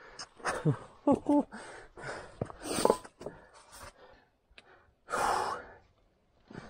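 A person breathing hard in short gasps and sighs, with a couple of brief voiced grunts and one longer exhale about five seconds in, from the exertion of scrambling up steep rock by hand.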